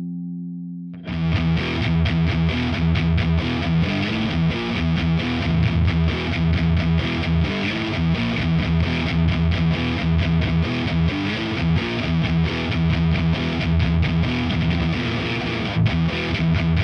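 G&L SC-3 Deluxe electric guitar with its stock MFD single-coil pickups, played through a high-gain Diezel VH4 amplifier into a 4x12 Celestion-loaded cabinet. A held chord dies away, and about a second in a fast, heavily distorted riff starts and keeps going.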